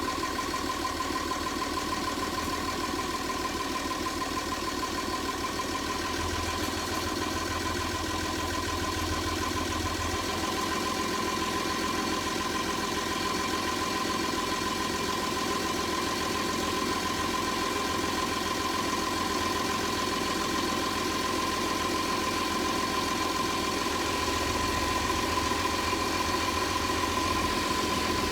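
Six-cylinder marine diesel engine of a trawler yacht idling steadily just after being restarted following repair, with a steady high-pitched tone running over the engine noise.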